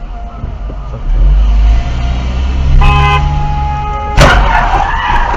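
Car road noise recorded from a dash cam, with a short car horn honk about three seconds in. About a second later there is a loud sudden bang, followed by a steady held tone.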